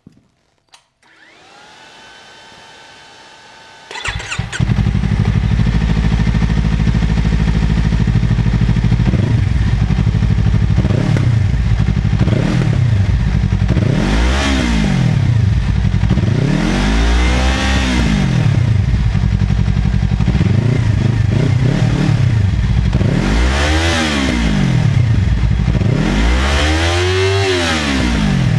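Motorcycle fitted with an Akrapovič aftermarket exhaust: after a faint whine, the engine starts about four seconds in and idles loudly. From about nine seconds the throttle is blipped over and over, the revs rising and falling, with four big revs near the middle and end.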